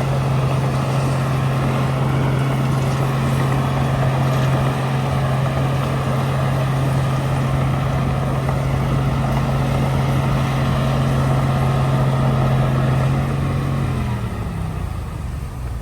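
Heavy diesel engine running steadily at high revs, then dropping in pitch near the end as it throttles down.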